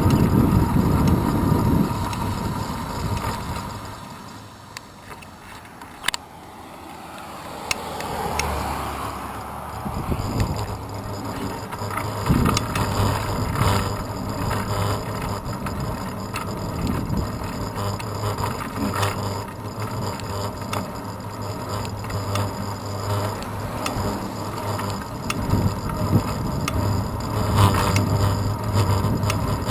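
Wind rush and road rumble from a road bicycle in motion, picked up by a camera mounted on its handlebars, with small rattles and clicks from bumps in the road. The noise fades away for several seconds a few seconds in, then builds again and stays steady.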